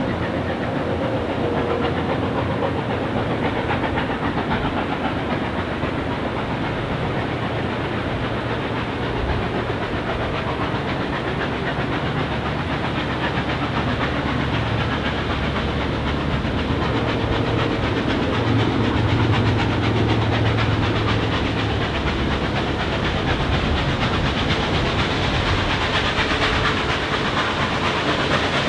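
NSWGR 36 class steam locomotive 3642 working up to the station out of sight, its exhaust and steam hiss running steadily and growing louder near the end as it approaches.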